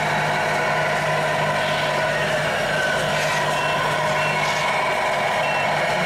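Radio-controlled scale model trucks running: a steady motor hum under truck engine noise, with short high beeps repeating evenly from about halfway through, like a reversing alarm.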